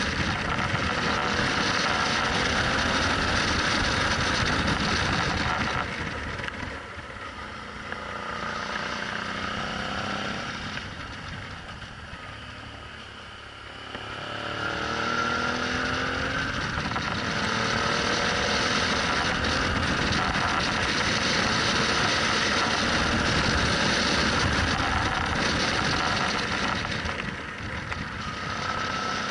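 Suzuki V-Strom 650's V-twin engine and rushing wind heard from on board the motorcycle. Both drop for several seconds through a hairpin bend, then the engine note rises as the bike accelerates out and the noise builds again.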